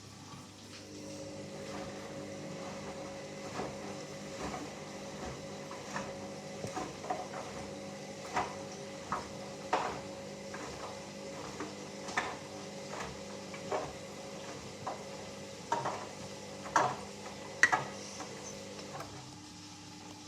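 Hoover Dynamic Next 7 kg washing machine mid-wash on a rapid cycle: the drum motor hums steadily while the sheets and water slosh and knock irregularly inside the turning drum. Part of the motor hum drops out near the end as the drum pauses.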